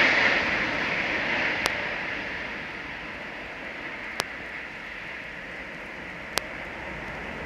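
Roar of a jet airliner's engines fading away as it climbs out after takeoff, settling into a steady, lower hiss. Three brief sharp clicks stand out along the way.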